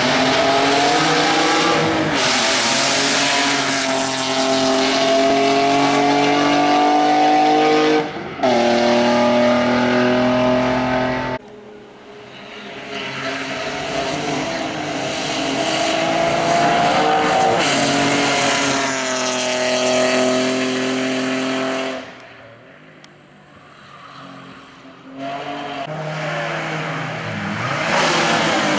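Alfa Romeo 156 V6 race car engine running hard under acceleration, its pitch rising steadily through each gear. Cuts between several passes, with quieter, more distant stretches in between.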